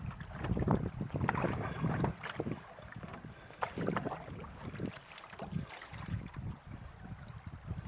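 Canoe paddle strokes dipping and splashing in river water, irregular, with a low rumble of wind on the microphone.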